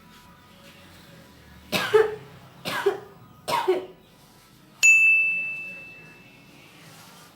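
A person coughs three times in quick succession. A single high, bell-like ding follows, rings out and fades over about a second and a half.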